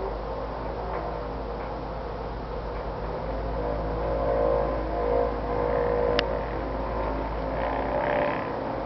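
An unexplained droning hum heard in the sky, several steady tones at once over a low rumble, swelling louder midway and easing off, with one short sharp tick partway through.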